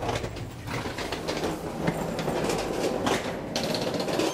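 Train running on the rails, a steady rumble with irregular clatter.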